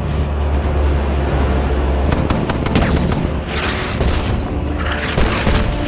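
AC-130 gunship: a steady low drone of the aircraft's engines, then from about two seconds in a rapid run of sharp gunshots and two rushing booming blasts.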